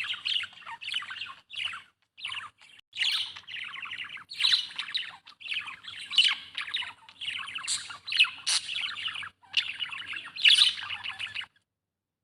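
Budgerigar chirping in a rapid, busy chatter broken by a few short pauses, stopping abruptly near the end.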